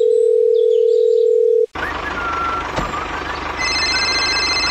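Telephone dial tone, one steady note held for about a second and a half that cuts off suddenly. It is followed by a steady tractor engine sound effect with a fast even pulse, and a high electronic tone joins in about three and a half seconds in.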